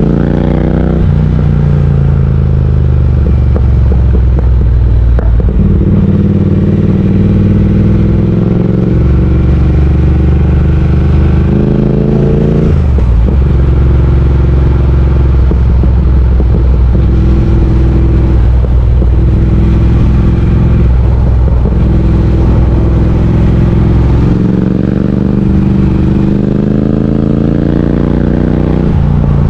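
Triumph Speed Twin 1200's parallel-twin engine running under way: revs climb and drop at gear changes about a second in and about thirteen seconds in, hold fairly steady between, and climb again near the end.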